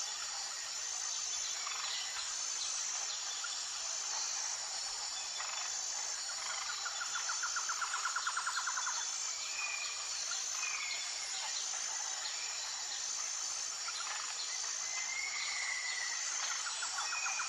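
Jungle ambience: a steady high-pitched drone of insects with a regular pulse running through it. A rapid trilling call comes in about six seconds in and again near the end, with short gliding bird chirps in between.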